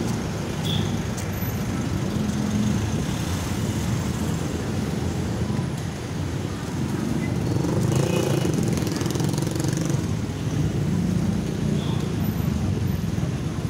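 Busy city street ambience: steady traffic noise with indistinct voices of people around.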